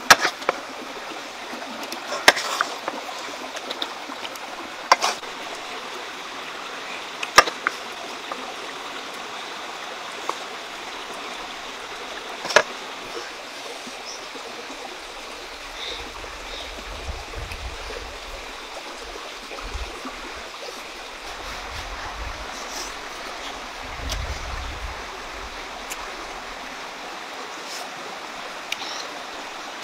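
Steady rushing of a flowing stream, with five sharp clicks in the first half and bursts of low rumble in the second half.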